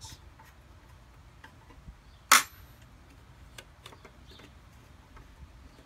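Light, scattered metallic ticks of a small wrench working the little nut at the primer bulb nozzle of a two-stroke lawn mower engine, with one loud sharp clack a little over two seconds in.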